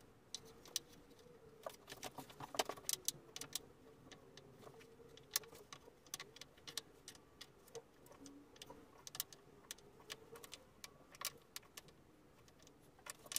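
Small pallet-wood blocks knocking and clicking against each other and the plywood board as they are set down and shuffled into place: faint, irregular light clacks.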